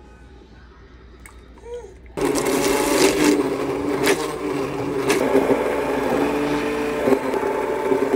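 Handheld immersion blender switched on about two seconds in, running steadily as it purées a pot of butternut squash soup.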